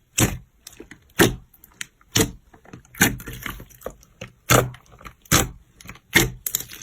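Slime being squeezed and pressed by hand, crackling in sharp bursts about once a second with fine crackles in between.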